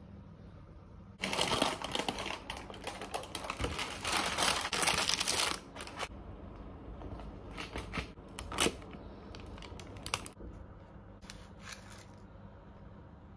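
Baking paper rustling and crinkling for about four seconds as the brownie slab is handled on it, followed by scattered light clicks and taps.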